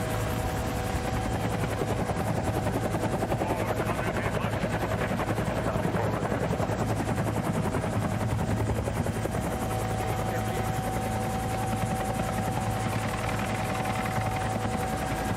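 Helicopter running: a steady, rapid rotor beat with constant whining tones over it.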